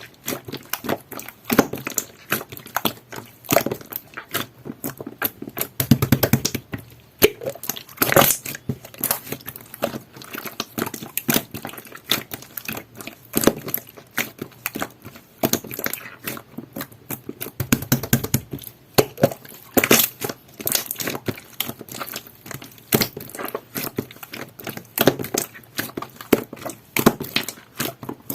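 Jelly-textured slime being squished and pressed by hand: a dense, irregular stream of small sticky clicks and crackles, with a few louder squelches now and then.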